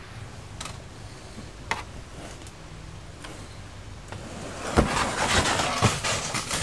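Pyranha plastic whitewater kayak sliding down a muddy, overgrown bank in a seal launch: a few light knocks at first, then for the last two seconds a loud rush of hull scraping over earth and plants, with two heavy thumps.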